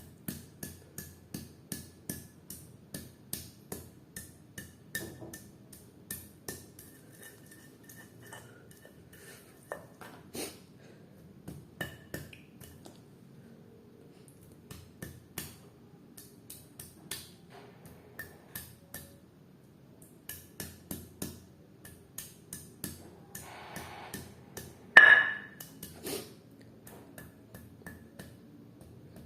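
Pestle pounding fresh turmeric and nutmeg in a mortar: repeated knocks about two a second, in runs of several strokes with short pauses between. One much louder, ringing strike comes about 25 seconds in.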